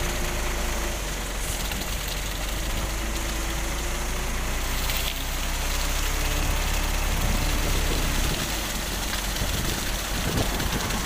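Concrete mixer truck's diesel engine running steadily with a low rumble as the drum discharges concrete down the chute. The low rumble eases a little about eight seconds in, and a few irregular knocks come near the end.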